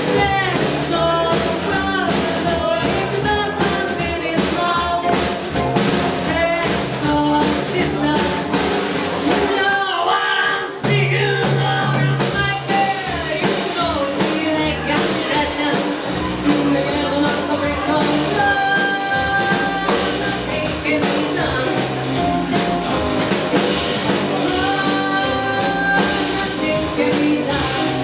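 Live swing jazz band with trombone and drums playing an up-tempo dance number with a steady beat.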